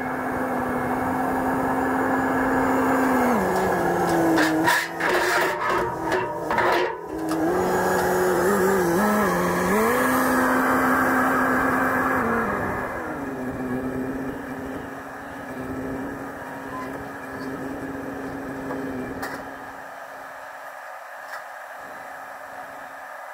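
SkyTrak telehandler diesel engine working, its pitch dropping and rising several times as it is throttled up and down. A run of sharp clanks comes about four to seven seconds in, and the engine fades quieter near the end.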